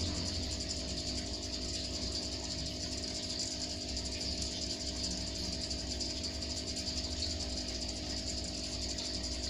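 Aquarium filter pump and aeration running: a steady hum with a few constant tones under an even hiss.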